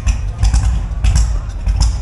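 A car engine idling with an uneven low rumble and irregular sharp pulses over it.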